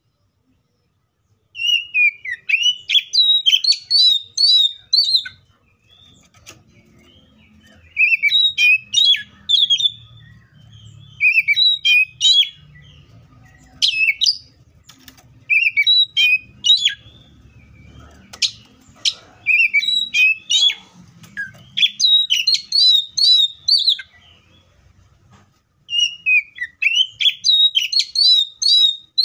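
Oriental magpie-robin singing: bursts of rapid, varied whistled phrases, each a few seconds long, separated by short pauses.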